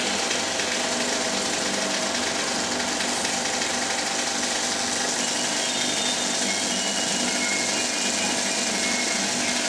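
35mm cinema film projector running: a steady mechanical whirr and rattle of the projector mechanism.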